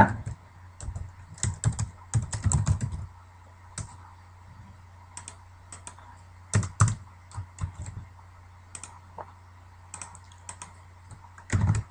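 Typing on a computer keyboard: irregular keystrokes, some in quick runs and some single, over a faint steady low hum.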